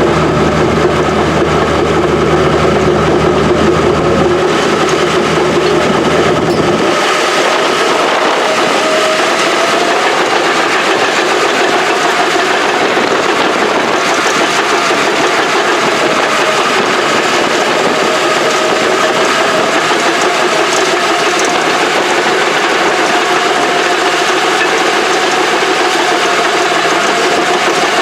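Engine of old Caterpillar heavy equipment running with a loud mechanical clatter. About seven seconds in, the deep low rumble drops away, leaving the clatter and a wavering tone.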